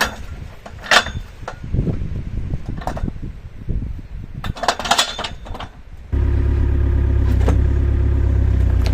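Scattered metal knocks and clanks, two of them ringing sharply, then, about six seconds in, an excavator's diesel engine running steadily at idle cuts in abruptly.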